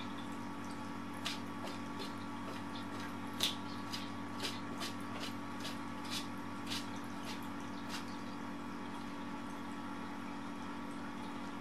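A steady hum with about a dozen short clicks scattered through the first two-thirds, one louder than the rest about three and a half seconds in.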